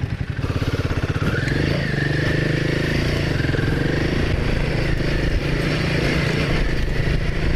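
Motorcycle engine idling with a slow pulsing beat, then revving up about half a second in as the bike pulls away, and running steadily under way.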